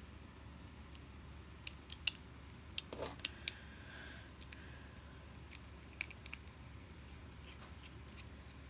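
Small metallic clicks and taps from a Honeybadger folding knife and a small screwdriver as the knife's pivot screw is fitted and driven in: a quick cluster of sharp clicks about two to three seconds in, then a few more around six seconds.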